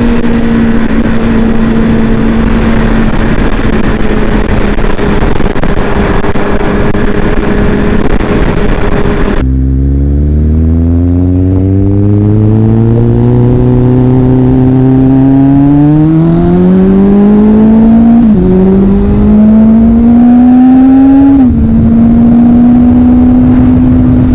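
Kawasaki Z800 inline-four running through a Two Brothers Tarmac exhaust with its baffle removed. For about nine seconds it holds a steady note under heavy noise. Then the engine note climbs steadily in pitch, dips sharply a little past halfway, climbs again, and drops back to a steady note near the end.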